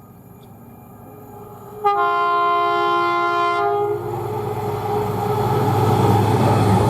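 A train approaches with a growing rumble; about two seconds in, its horn sounds one steady blast of several notes together, lasting about two seconds. Then the train passes close, its running noise getting louder.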